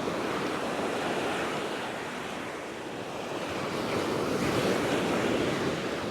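Ocean surf breaking and washing up the beach, with wind on the microphone; the wash swells louder about four seconds in.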